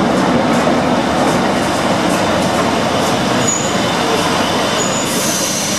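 Madrid Metro train pulling into an underground station platform, its wheels and running gear rumbling steadily and loudly. Two short high squeals come about three and a half and five seconds in, and a hiss starts near the end.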